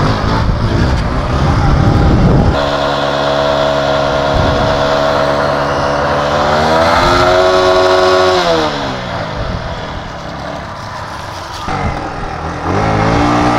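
Motorcycle engine revving. After a rough rushing noise, the engine is held high and steady for several seconds, then the revs fall away, and another rev rises near the end.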